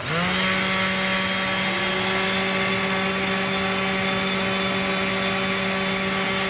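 A Festool power tool's motor spins up with a rising whine and then runs steadily. About two seconds in, a Metabo M-class cordless vacuum cleaner starts on its own and runs alongside it, switched on automatically by the running tool.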